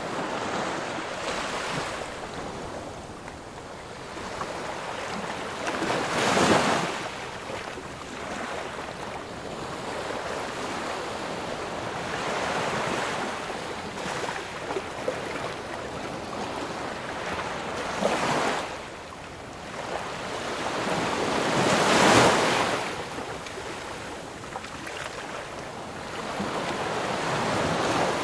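Ocean waves breaking and washing on the shore: a steady rush of surf, with three larger waves breaking about a third of the way in, about two-thirds in and again soon after.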